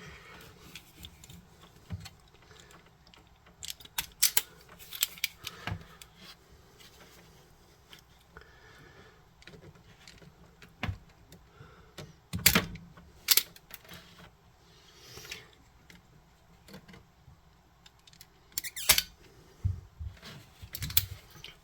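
Small scattered clicks and taps of hands working a plastic pinball connector: wire pins being pushed and snapped into a new connector housing, with sharper clicks now and then.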